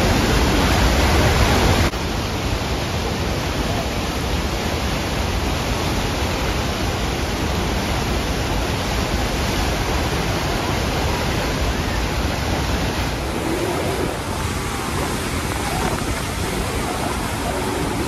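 Steady roar of Niagara Falls and the fast-flowing Niagara River, an even rushing noise with no breaks. It drops a little in level about two seconds in.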